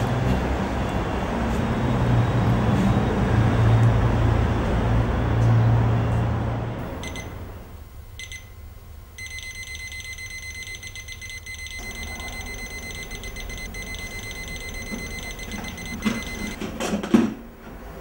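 A loud low rumbling noise fades out over the first seven seconds or so. Then an electronic alarm clock starts beeping: two short bursts, then continuous rapid high beeping. Near the end it cuts off with a thump as it is switched off.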